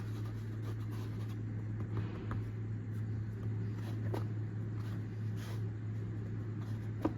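Stuffed paratha dough being handled on a board: light rubbing and scraping with a few soft taps, over a steady low hum.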